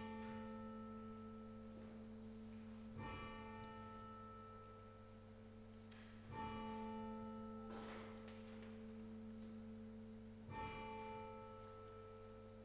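Church bell struck slowly, one stroke about every three seconds, each stroke ringing on. A longer pause after the third stroke marks the break between sets of three, typical of the three-times-three prayer strokes of a Norwegian service.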